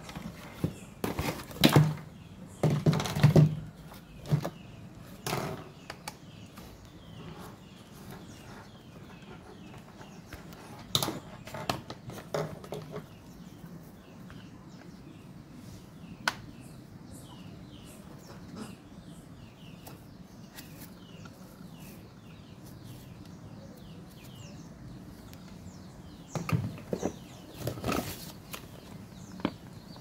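Clicks, knocks and rustles of a plastic handheld car vacuum cleaner and its attachments being handled, unboxed and not switched on, with cardboard and paper rustling. Faint bird chirps in the background.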